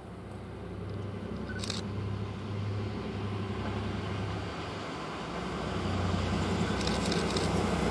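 FS D445 diesel-electric locomotive approaching at the head of a regional train, its diesel engine a steady low hum that grows louder as it nears.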